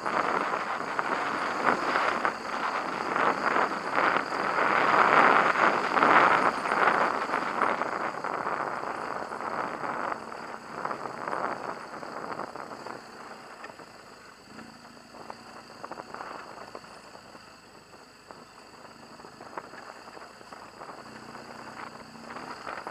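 BMW HP2 Enduro motorcycle ridden on a dirt track: a rushing mix of wind on the microphone and tyre noise, with the boxer-twin engine running underneath. It is loudest in the first half and drops to a quieter, steadier engine note from about twelve seconds in.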